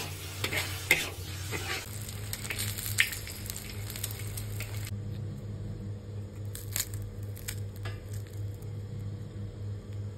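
Ground meat and diced vegetables sizzling in a wok while a spatula stirs them, with sharp scrapes and clicks against the pan; this cuts off suddenly about halfway. Then a low steady hum with a few sharp crackles as the crisp wrapper of a fried lumpia is broken open.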